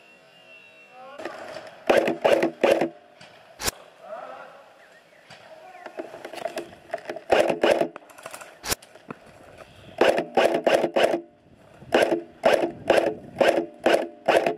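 Airsoft rifle firing quick strings of shots, about four to six sharp cracks each with a brief pitched buzz, several times over. Two single sharp clicks fall between the strings.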